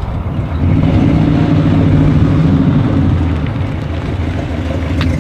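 V8 engine of a 1967 Shelby GT500 'Eleanor' fastback Mustang running as the car drives by, its note swelling about a second in and easing a little after about three seconds.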